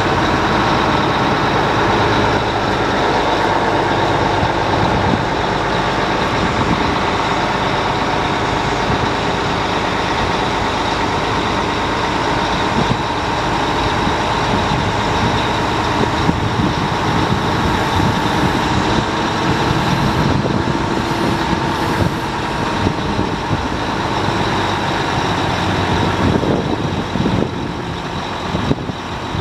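Fassi F140 truck-mounted knuckle-boom crane working its hydraulics as the boom is raised and unfolded, driven by the truck's running engine: a steady mechanical drone with a steady whine over it, a little quieter near the end.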